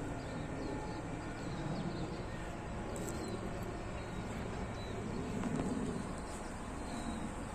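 Garden ambience with birds calling: short high chirps now and then over a low, steady background rumble.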